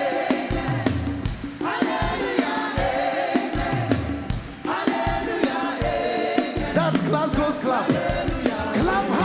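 Live gospel worship music: many voices singing together over a band with a steady beat of drums and bass.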